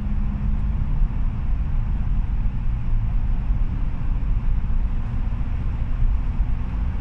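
Ford Ranger 2.0 EcoBlue four-cylinder diesel heard from inside the cab while driving: a steady low engine drone with road noise.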